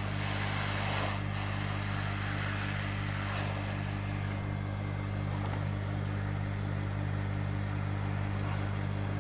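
Heat gun running steadily: a motor's hum with a rush of blown hot air, shrinking heat-shrink tubing.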